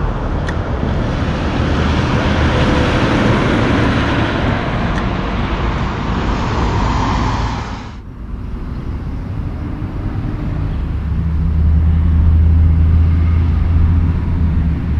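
Highway traffic noise from a truck approaching on the road, cutting off abruptly about eight seconds in. Then a loaded Mack CL-series log truck's diesel engine running close by with a steady low drone, growing louder for a few seconds near the end.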